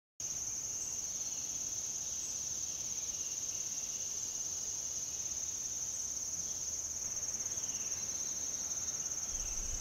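Steady, high-pitched chorus of summer insects such as crickets, running without a break.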